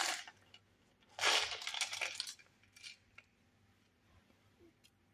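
Whole cloves rattling and clinking as they are shaken out into the pot: a short burst at the start, a longer clattering burst from about a second in, then a few faint ticks.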